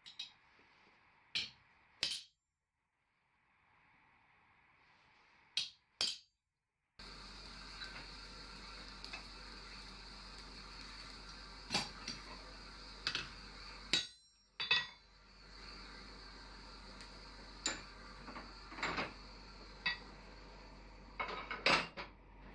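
Scattered single metal-on-metal strikes on steel that ring briefly, at irregular intervals of one to a few seconds, as a plane blade is forged. From about a third of the way in, a steady hum with a high whine runs underneath.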